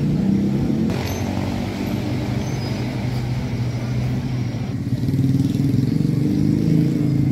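A motor vehicle engine running steadily with a low hum, a little louder from about five seconds in.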